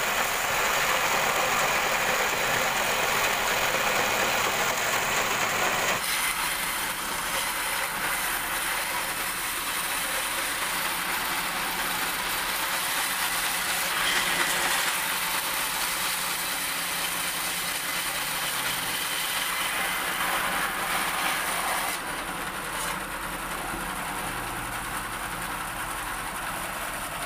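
Wooden-framed band saw running, its blade cutting through a thick wooden slab in a steady, loud noise that changes character about 6 seconds in and again about 22 seconds in.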